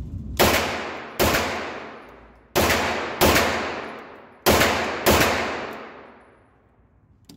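Six 9mm shots from a Grand Power Stribog carbine fitted with a muzzle brake, fired in three quick pairs. Each report rings on in the long echo of an indoor range.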